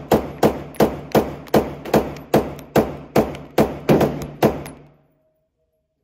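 Rapid string of gunshots from a firearm fired at a range: about a dozen evenly spaced shots at roughly three a second, each with a short ringing tail, stopping about four and a half seconds in.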